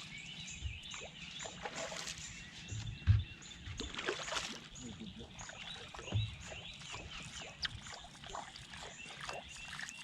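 A hooked largemouth bass splashing at the water's surface as it is worked to the boat and flipped aboard, with sharp thumps on the boat about three seconds in and again around six seconds.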